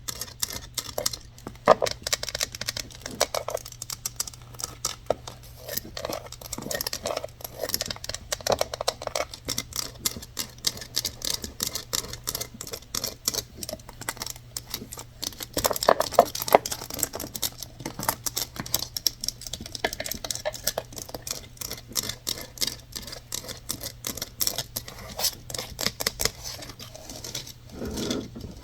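Quick tapping and scratching on objects, a dense run of small clicks with occasional sharper taps.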